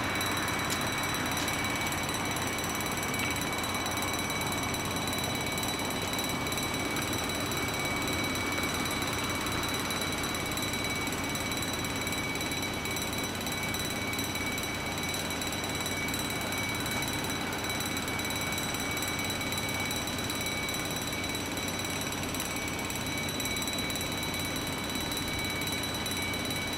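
Level crossing warning bell ringing steadily, with the barriers down: the signal that a train is approaching.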